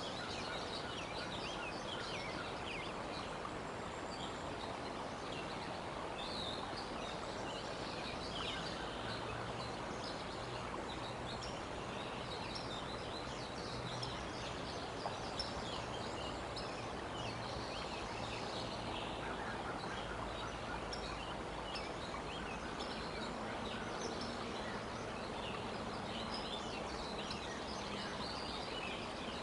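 Outdoor ambience of steady background noise with small songbirds chirping on and off throughout. Two brief clicks come about fifteen seconds in.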